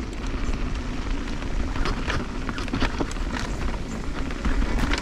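Intense M16 mountain bike rolling over dirt and gravel: wind rumble on the helmet-camera microphone, tyre noise and scattered clicks and rattles from the bike and loose stones.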